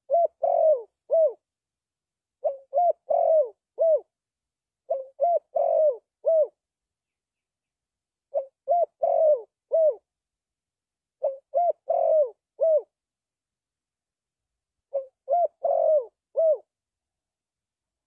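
Spotted dove cooing: six phrases of four or five coos each, one phrase every two to three seconds.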